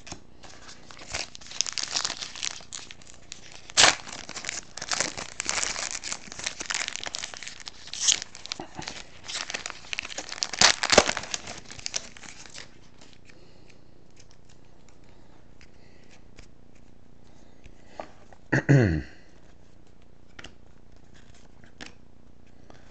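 Plastic card-pack wrapper being torn open and crinkled by hand: a dense run of crinkling and tearing for about twelve seconds, then it stops. Near the end there is one short vocal sound, falling in pitch.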